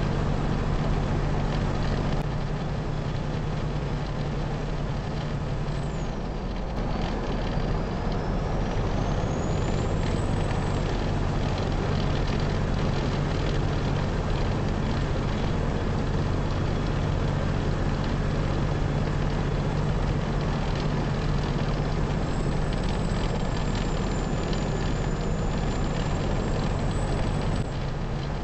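Semi truck's diesel engine droning steadily with road and wind noise at highway speed, heard from inside the cab.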